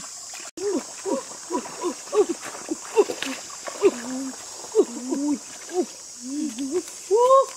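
Women's voices talking in short rising-and-falling syllables, over a steady high hiss.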